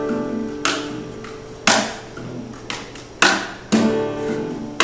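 Steel-string acoustic guitar played with sharp percussive strikes on the strings about once a second, the chords ringing on between them.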